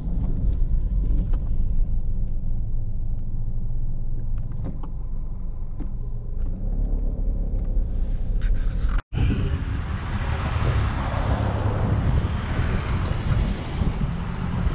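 Low, steady rumble of a car's engine and road heard from inside the car. After an abrupt cut about nine seconds in, louder wind and tyre noise follows as the car drives along.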